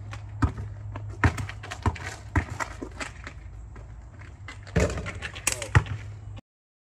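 A basketball being dribbled on a driveway, with sharp bounces about every half second to second over a steady low hum. A brief voice and a quicker run of bounces and thumps come near the end, and then the sound cuts off.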